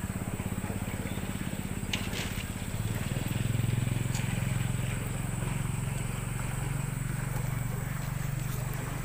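A small engine running steadily with an even low hum, getting a little louder about three seconds in, with a couple of brief clicks.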